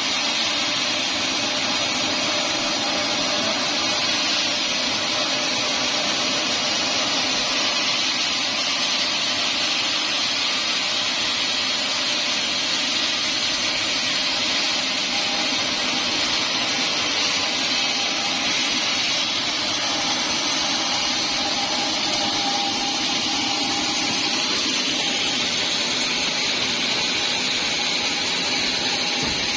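Band sawmill running with a steady, unbroken mechanical whine and hiss.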